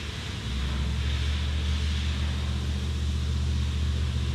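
A steady, low machine drone that starts about half a second in and then holds even.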